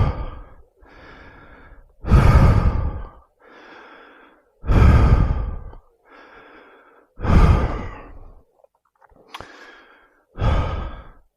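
A man breathing hard, out of breath after climbing a lot of stairs: about four loud, heavy breaths roughly every two and a half seconds, with quieter breaths between.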